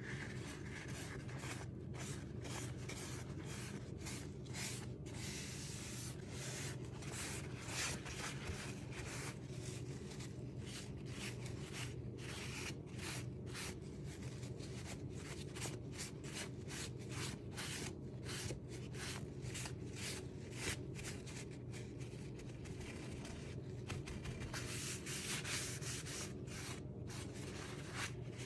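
Paper towel rubbing briskly back and forth over cast iron stove grates, working stove polish over the metal in quick repeated strokes, over a steady low hum.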